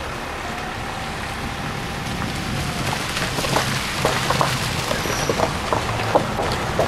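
Car tyres rolling slowly over a wet, gravel-strewn road, heard from inside the car: a steady hiss of water and road noise, with scattered short ticks and splashes from about three seconds in.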